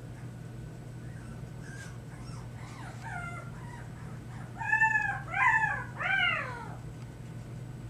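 Biewer Yorkshire terrier puppy making high, meow-like whining cries, which the owner calls lion cub noises. Soft cries start about a second and a half in, then come three louder ones in quick succession, each rising and then falling in pitch.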